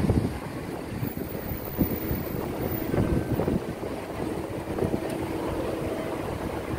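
Wind buffeting the microphone, with low thumps of walking. About two-thirds of the way in, the steady hum of a running escalator joins in while it is being ridden down.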